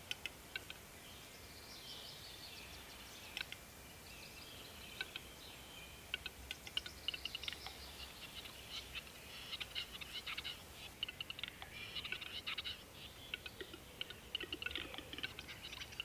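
Western capercaillie lek song: a series of dry clicks, sparse at first, coming faster and faster into a rapid clatter through the second half. Faint songbirds call in the background.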